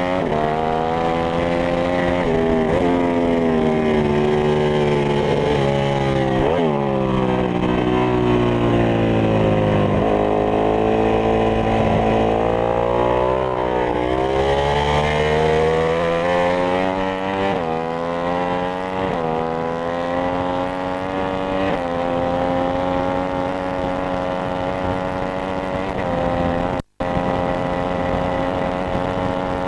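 Ducati 995 superbike's V-twin engine at full race pace: revs climb and snap back through quick upshifts, fall away under braking into a slow bend and run low, then climb again through a run of upshifts about a second and a half apart to a steady high-rev run. The sound cuts out briefly once near the end.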